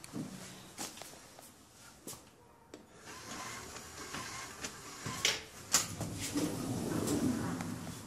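Keys and a door lock being worked: a string of sharp metallic clicks and rattles, the loudest a little over five seconds in.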